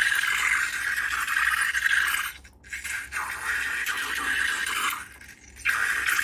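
Scraping, rustling noise of slime being worked in a container, in three long stretches broken by short pauses about two and a half seconds in and again about five seconds in.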